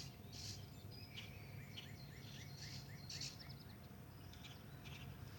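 Faint outdoor background with distant small birds chirping; a quick run of about eight short, even chirps comes through the middle. A faint steady hum sits underneath.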